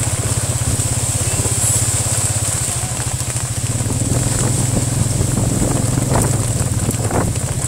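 The motorcycle engine of a Cambodian tuk-tuk (a motorbike towing a passenger carriage) running steadily on the move, with an even low pulse and a steady high hiss above it.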